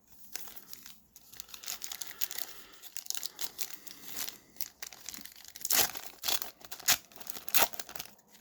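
A trading-card pack wrapper being torn open and crinkled by hand, with a run of dry crackles. Several sharper, louder rips come in the second half.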